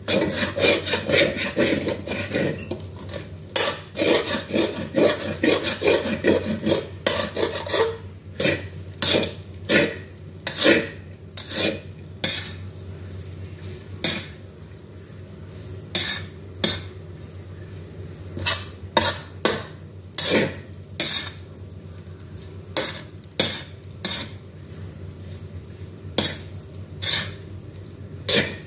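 Metal spatula scraping and clanking against a metal wok while fried rice is stir-fried and tossed. The strokes come fast and close together for the first several seconds, then slower and more spaced.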